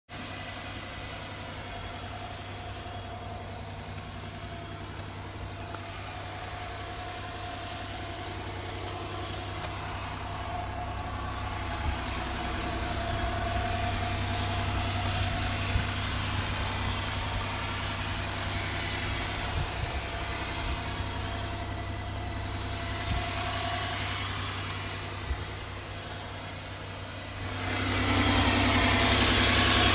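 Honda Acty HA4 kei truck's 660 cc three-cylinder engine idling steadily, getting louder near the end.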